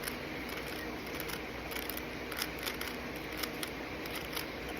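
Phantom Rubik's Cube being turned layer by layer: a run of light, irregular clicks, a few a second, over the steady hum of a fan.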